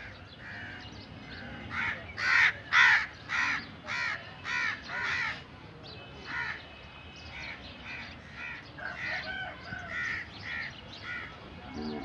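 Crows cawing: a quick run of about seven loud caws about half a second apart, a couple of seconds in, then fainter scattered caws through the rest.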